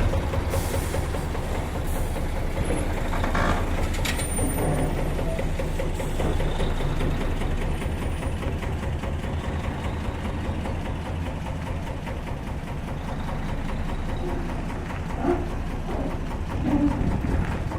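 A diesel engine of compact earth-moving machinery running steadily, with a few short knocks and clanks over it.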